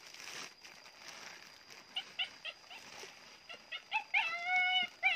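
A dog whining and yelping: a few short, high yips from about two seconds in, then a longer drawn-out whine near the end that drops in pitch as it fades.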